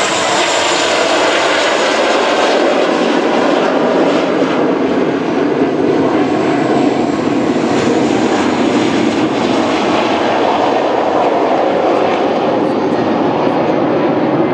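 Aircraft engine noise, loud and steady, from an aircraft passing or taking off.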